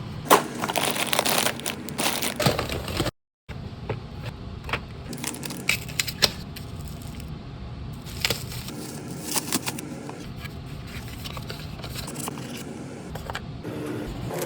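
Close-up handling of newly bought products and their packaging: a busy run of clicks, taps, rattles and rustling scrapes, densest in the first few seconds, then sparser taps. The sound cuts out completely for a moment about three seconds in.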